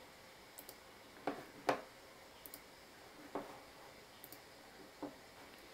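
Computer mouse clicking a few times at uneven intervals, the loudest click a little under two seconds in, with fainter high ticks between.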